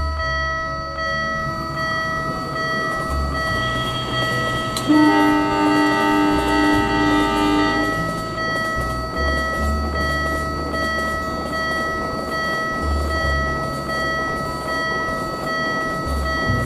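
Animated railroad crossing sounds: a steady crossing warning tone runs throughout. A train horn blows for about three seconds, starting about five seconds in, the loudest part. Underneath is background music with a shifting bass line.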